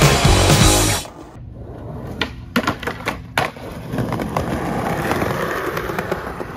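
Punk rock music cuts off about a second in. Then a skateboard on concrete: several sharp clacks as the board is popped and landed, followed by the wheels rolling along the pavement.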